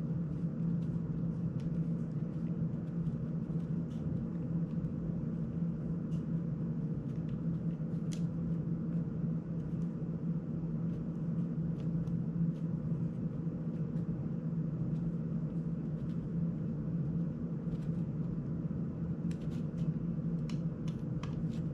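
Steady low hum under faint, scattered small clicks of a precision screwdriver and metal screws being worked on a small FPV drone's frame.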